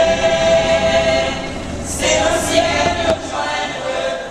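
A choir singing, the voices holding long notes together, with a new phrase coming in about two seconds in.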